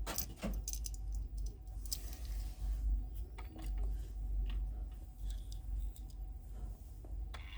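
Scattered clicks and short crinkles of a Hot Wheels blister card being handled and opened, the plastic bubble and cardboard backing being worked loose from the die-cast car.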